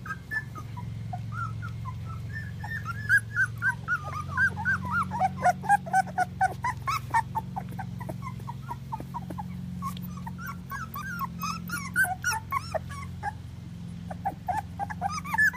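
A litter of four-week-old puppies whining and squeaking: many short, high cries that rise and fall, overlapping, busiest and loudest in the middle. They are crying for their mother, who lies a little way off.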